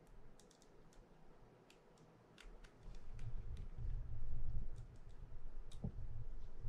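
Faint scattered clicks of a mini screwdriver working the retaining screw of the rotor nut on a Quantum Smoke 50 spinning reel, with a low handling rumble from about three seconds in.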